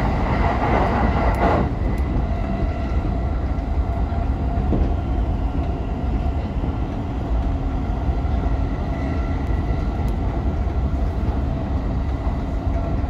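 Electric commuter train running along the track, heard from inside the driver's cab: a steady rumble of wheels on rail with faint steady tones over it, a little louder for the first second and a half.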